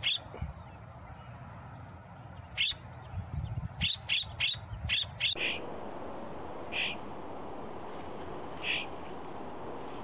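Florida scrub-jays calling: short repeated calls, one just at the start and then in runs of about three a second, until about five seconds in. After that comes a steady hiss with two lone calls about two seconds apart.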